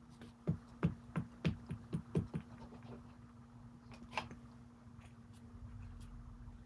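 Clear acrylic stamp block tapped repeatedly onto an ink pad: about seven quick, soft taps in the first couple of seconds, then a single click about four seconds in.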